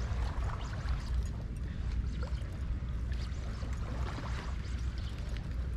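Small waves lapping and trickling against the shore rocks, with scattered light splashes and a steady low rumble underneath.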